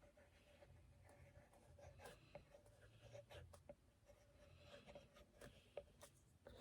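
Faint scratching strokes and light ticks of a drawing tool moving on a surface, over a faint steady hum.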